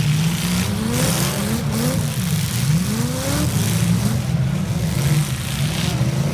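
Demolition derby cars' engines running hard, several of them revving, with their pitch repeatedly climbing and dropping as the drivers accelerate.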